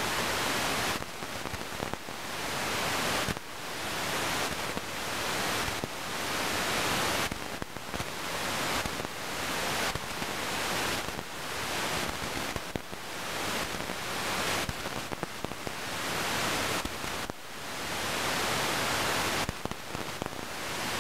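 Radio static from an RTL-SDR receiver tuned to 124 MHz: a hiss that surges and drops away again every second or two. These are distant lightning strikes picked up as noise on the radio.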